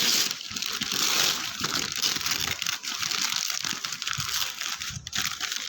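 A delivery package's wrapping being torn and crumpled open by hand: a dense, continuous crinkling rustle with many small irregular crackles.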